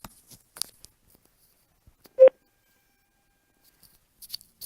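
TAL BTL-BL Bluetooth bottle speaker playing its connected notification: a single short beep about two seconds in.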